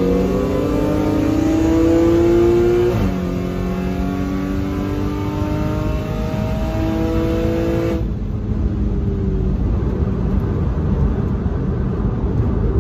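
Supercharged 3.0 V6 of a modified 2015 Audi S5 heard from inside the cabin at full throttle in a roll race. The engine note climbs in pitch, drops sharply at an upshift about three seconds in and climbs again. About eight seconds in the engine note falls away as the driver lifts off, leaving road and wind noise.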